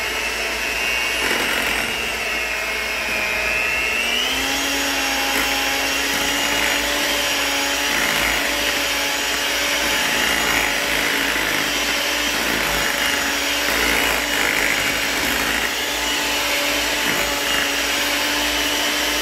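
Electric hand mixer running with its beaters in thick brownie batter: a steady motor whine that steps up in pitch about four seconds in.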